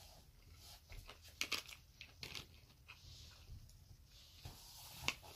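Chewing sushi close to the microphone: faint scattered wet mouth clicks and smacks, coming in small clusters, with the sharpest click about five seconds in.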